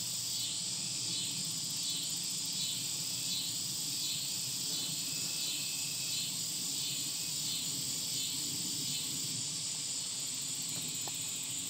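Summer evening insect chorus: a steady high-pitched drone with a second insect call pulsing about one and a half times a second, which fades out near the end.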